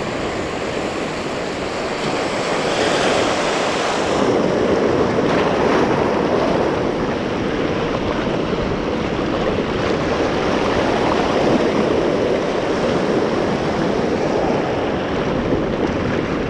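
Small surf waves washing in and swirling over a shallow rocky reef shoreline, a steady wash of water that swells a little a few seconds in.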